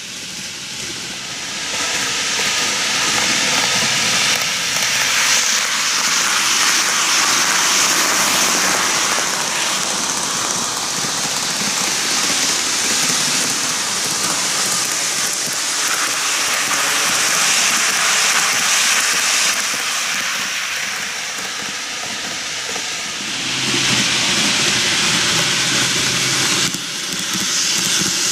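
N-gauge model electric trains running on plastic track, a steady rattling hiss of small wheels and motors on the rails. It grows louder near the end as the red 8-car Kintetsu 80000 series Hinotori set passes close.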